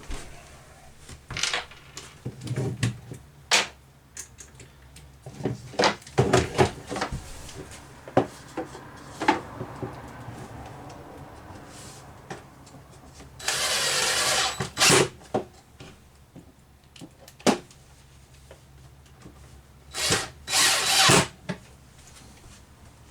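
Power drill driving screws in two short bursts, about 14 and 21 seconds in, with scattered knocks and clicks of scrap-wood spacers being handled and set in place.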